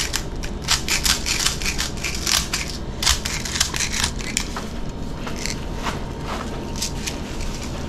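Airsoft speed loader pushing plastic BBs into an M4 magazine: a rapid run of irregular clicks and rattles that thins out toward the end.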